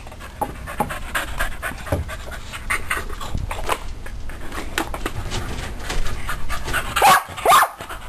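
Puppy panting quickly and irregularly, with two short, louder cries about seven seconds in.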